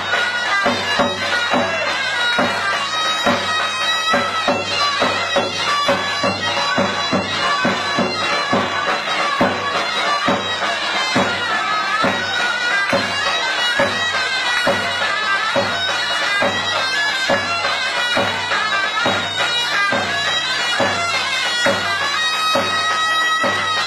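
Lively folk dance tune on a droning, bagpipe-like reed instrument, with a steady beat about twice a second.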